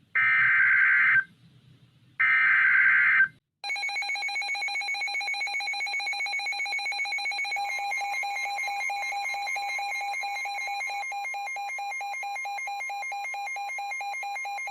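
Two NOAA Weather Radio SAME digital header bursts, each about a second of buzzy data tones, announce a new warning. Then the weather radio receiver's alarm sounds a rapid pulsing beep, and about four seconds later the station's steady warning alert tone joins it underneath.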